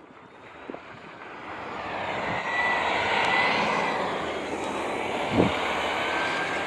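An aircraft passing overhead: its engine noise swells to a peak in the middle and slowly fades, with a thin whine that drops slightly in pitch as it goes by. There is a single knock about five seconds in.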